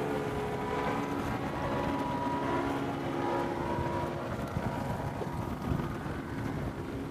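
Outboard boat motor running steadily at low speed, with wind noise on the microphone.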